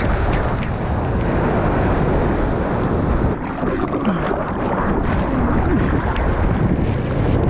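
Loud, steady wash of churning whitewater and splashing right at a water-level GoPro as a surfer on a shortboard goes through broken waves, with wind noise on the microphone.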